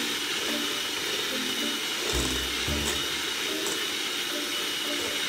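Electric hand mixer running steadily in a stainless steel bowl, a constant motor whine with the whirr of the beaters.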